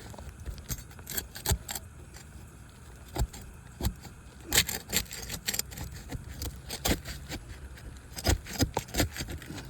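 Irregular sharp metallic clicks and scrapes of a hand roofing tool being worked against three-tab asphalt shingles to break their sealant bond, with clusters about halfway through and near the end.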